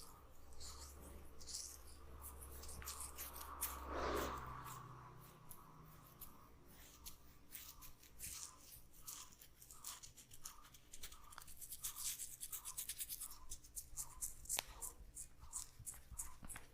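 Hands massaging an oiled scalp and hair: rhythmic rubbing at about two to three strokes a second, with dense crackling from the oily hair, swelling loudest about four seconds in.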